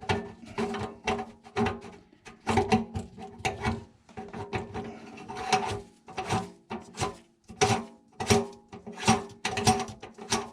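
Irregular short clicks and scraping strokes from a sink drain fitting being worked and tightened. Steady background music tones run underneath.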